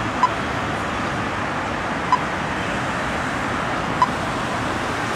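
Steady street traffic noise at a city junction, with a short beep from the pedestrian crossing signal about every two seconds, three times.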